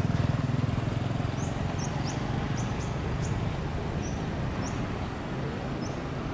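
Low rumble of a Boeing 737-400's CFM56-3 jet engines, fading away. Short high bird chirps come and go over it.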